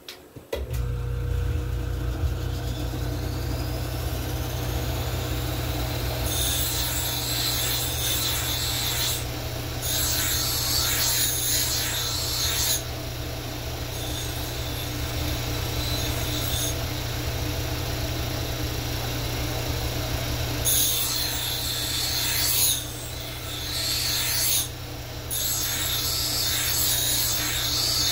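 A workshop power tool's motor switches on and runs with a steady hum, a faint whine rising as it spins up. From about six seconds in come five stretches of rasping, each a few seconds long, as material is worked against an abrasive.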